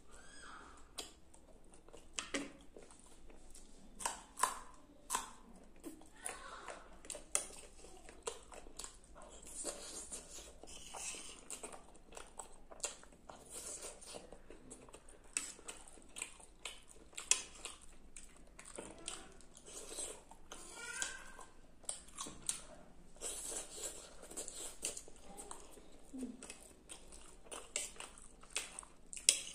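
Close-up eating sounds: a person chewing mouthfuls of Maggi noodles and macaroni, with many short, sharp clicks from a metal spoon and the mouth at irregular moments.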